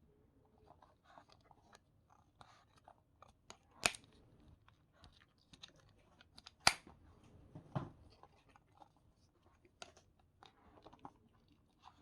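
Deshedding comb raking through a Pomeranian's coat: irregular faint scratchy strokes, with two sharp clicks about four and nearly seven seconds in.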